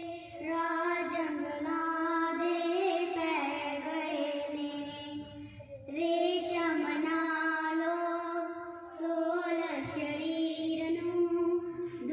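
A girl singing solo in long, held notes. The melody falls into phrases with short breaks for breath about six and nine seconds in.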